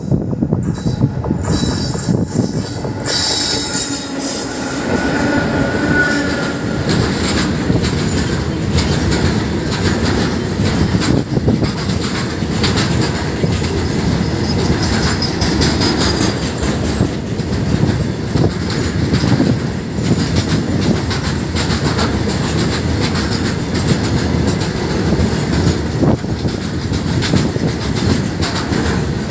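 Freight train hauled by twin WAG-7 electric locomotives passing close by, followed by a long rake of loaded open box wagons rolling past: a steady rumble with wheels clattering over the rail joints and squealing at times. The noise grows sharply about three seconds in as the locomotives reach the microphone.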